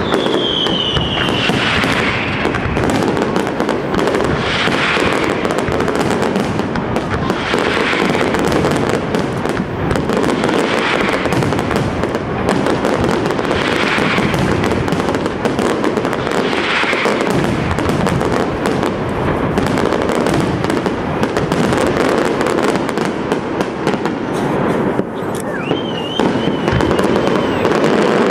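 Aerial fireworks display by Pirotecnia Europla going off without a break: dense, loud crackling and banging of shells and firecrackers. A falling whistle sounds right at the start.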